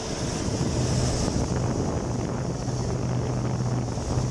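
2011 Chevrolet Tahoe V8 engine running steadily with a steady hum, its serpentine belt and pulleys turning, on a test run after a new 76°C thermostat and fresh coolant were fitted.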